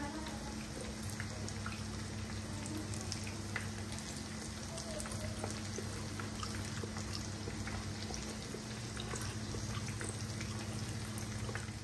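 Cornflake-breaded chicken pieces frying in a pan of oil: a steady sizzle with scattered small crackles, over a low steady hum.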